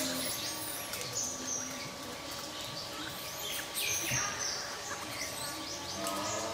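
Forest ambience with birds chirping and whistling, short calls scattered throughout over a thin steady background tone.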